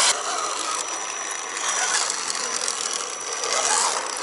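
Scale RC Land Rover Defender 90 crawler's electric motor and geared drivetrain whining and chattering as it drives with wheels spinning through deep mud. A thin steady high whine sets in about a second in.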